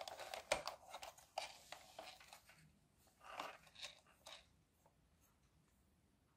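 Fingers handling a hard plastic toy tractor: faint clicks and scrapes of plastic in the first couple of seconds, then a few brief rustles about three to four seconds in.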